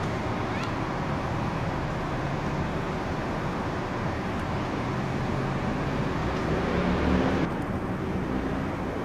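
Steady outdoor background noise like passing traffic, with faint indistinct voices and a slightly louder low rumble about seven seconds in.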